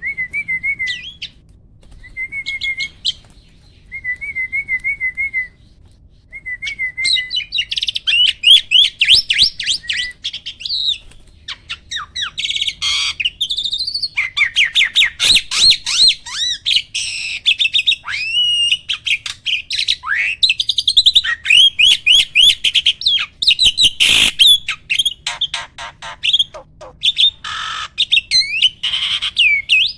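A starling singing: four short wavering phrases of about a second each, then from about seven seconds in a fast, unbroken run of rapid chattering and whistled notes.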